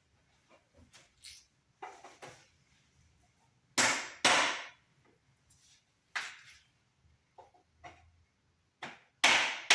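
A rubber mallet tapping a wooden table-leg upright down over its mounting tab, seating it. The knocks are irregular and often come in pairs, loudest about four seconds in and again near the end.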